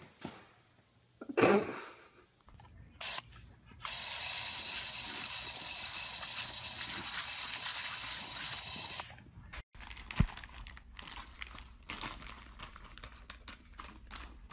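A short knock, then a steady hiss lasting about five seconds, then scattered crinkling and rustling of a plastic food bag as a dog roots around with its head inside it.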